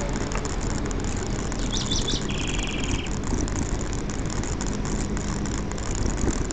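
Steady rush of wind and road noise on the microphone of a bicycle being ridden along a paved road. About two seconds in, a bird calls: three quick high notes followed by a short fast trill.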